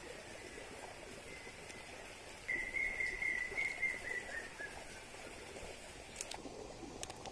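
An animal's high, steady whistling call, faint at first and loud for about two seconds from a third of the way in, sagging slightly in pitch as it fades. Under it, soft rustling of vines and small fruits being sorted by hand; a sharp click near the end.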